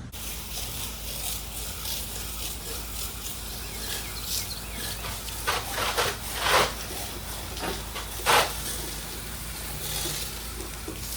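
Pressure-washer wand spraying soft-wash chemical onto a garage: a steady hiss of spray over a low machine hum, with a few louder surges of spray about halfway through.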